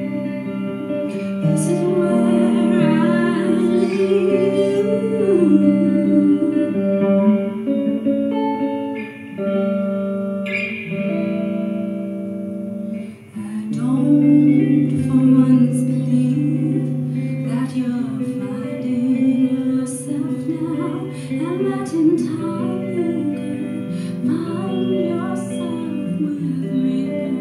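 A woman sings a folk-rock song and accompanies herself on a Gibson electric guitar. The vocal line briefly drops out about halfway through while the guitar carries on.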